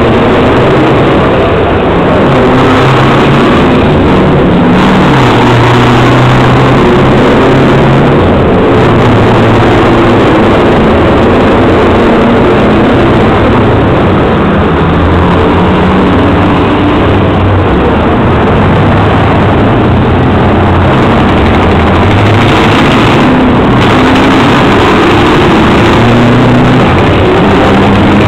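Very loud, continuous heavy engine noise from trucks in a decibel contest, a steady low drone whose pitch shifts up and down in steps.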